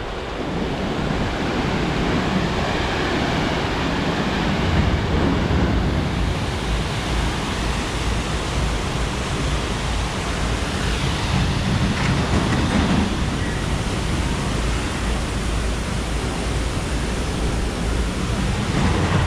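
Steady rushing noise with a fluctuating low rumble: wind buffeting the microphone.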